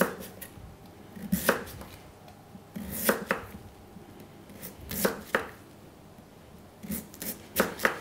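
Kitchen knife slicing through a peeled root vegetable, knocking on the cutting board with each cut. There is a knock about every one and a half seconds, several of them in quick pairs.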